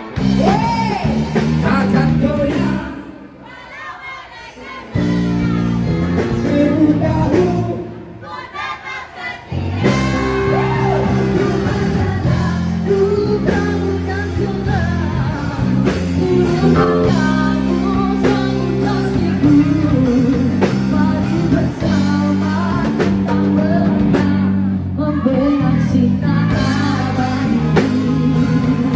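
Live band playing a song with electric guitars and a drum kit while a singer sings into a microphone. The music drops in level twice in the first ten seconds, then carries on steadily.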